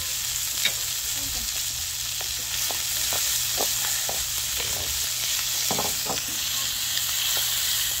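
Pork belly sizzling steadily on a hot stone griddle over charcoal, with scattered short clicks and scrapes of metal tongs turning the pieces on the stone.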